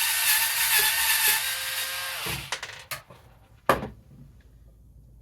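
Electric screwdriver with a Torx T10 bit running for about two seconds, its pitch dropping as it winds down, followed by two sharp clicks.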